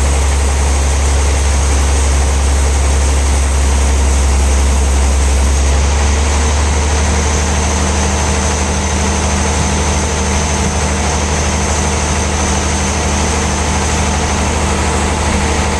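Heavy sawmill machinery running steadily with a loud, deep hum. About six seconds in the high hiss drops away and a slightly higher hum comes in.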